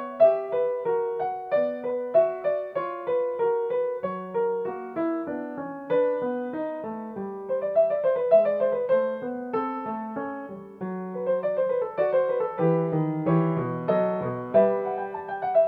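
Background piano music: a gentle melody of single notes over lower bass notes, played at an even pace.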